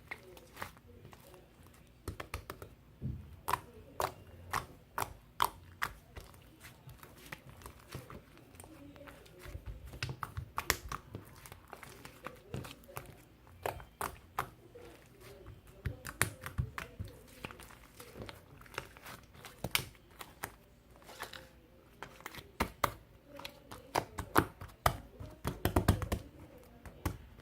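Irregular sharp clicks and taps close to the microphone, several a second, with a few low thumps among them: small objects being handled.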